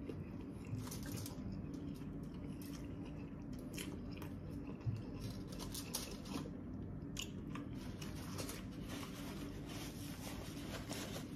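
Close-miked chewing of a mouthful of fried fish taco, with many small wet clicks and soft crunches.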